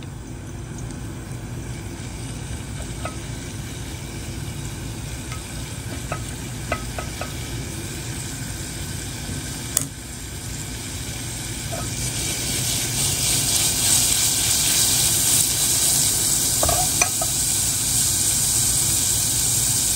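Minced garlic sizzling in olive oil in a pot, the hiss growing louder about two-thirds of the way through as the oil heats up and bubbles, with a few light clicks.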